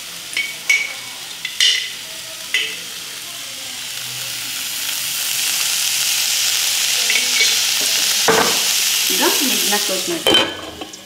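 Ghee ladled onto a piece of hot charcoal in a small steel bowl, sizzling and smoking to give the dish a smoky flavour. A few light clicks come first, then the hiss builds over several seconds. A metal clink sounds near the end as a lid goes over the pan, and the hiss drops.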